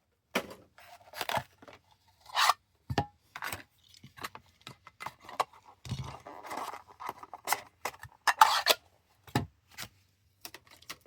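Irregular scrapes, clicks and rustles of a metal collector tin and its plastic insert being opened and handled as a diecast car is unpacked.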